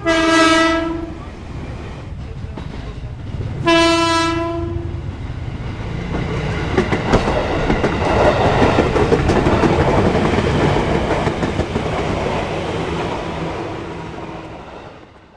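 KRL electric commuter train sounding its horn twice, two single-tone blasts of about a second each, some four seconds apart. The rumble and wheel clatter of the running train follow, swelling and then fading out near the end.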